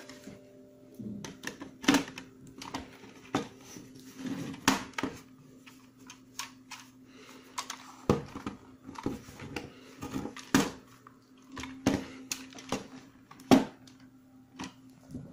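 Hard plastic housing of a SkyRC MC3000 battery charger handled and pressed together over its circuit board: irregular clicks and knocks of plastic, the loudest one near the end. A faint steady low hum runs underneath.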